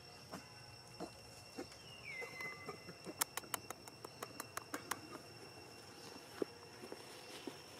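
Forest ambience: insects buzz steadily at two high pitches, a bird gives one falling whistle about two seconds in, and a quick run of sharp clicks, about four a second, comes between three and five seconds in.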